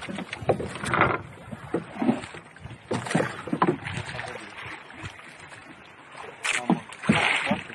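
Irregular knocks and thumps on a wooden outrigger fishing boat as fishermen pull a catch in over the side. There is a brief rushing noise about a second in and again near the end.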